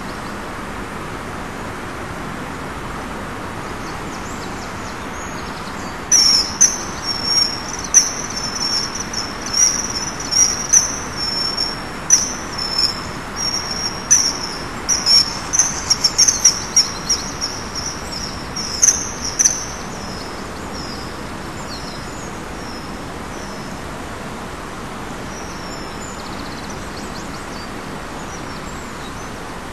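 Common kingfisher calling: a fast series of short, high-pitched piping notes that starts about six seconds in, runs for some fifteen seconds, then thins out to a few faint notes, over a steady background hiss.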